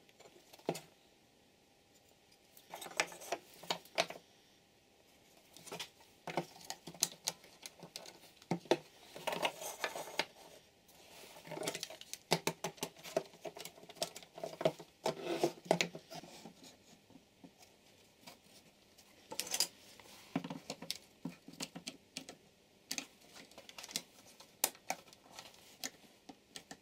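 Hand work on a wooden bench: small wooden pieces knocking and clicking as they are handled and set down, and plastic one-handed quick-release bar clamps ratcheting shut around them. The clicks and knocks come in irregular clusters with short pauses between.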